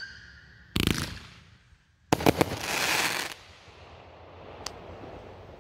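Fireworks going off: a sharp bang about a second in, then a louder burst about two seconds in that trails on for about a second, and a faint pop near the end.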